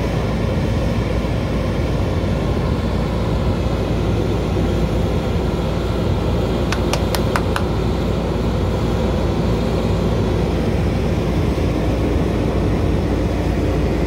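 JCB 3DX backhoe loader's diesel engine running steadily close by. Four sharp clicks come in quick succession about halfway through.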